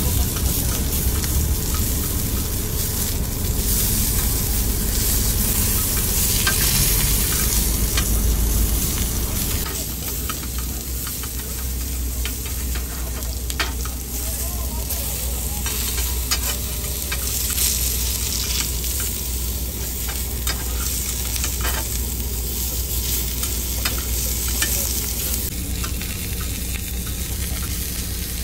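Pork belly sizzling as it fries on a hot grill plate, with short clicks and scrapes of a cooking utensil turning it.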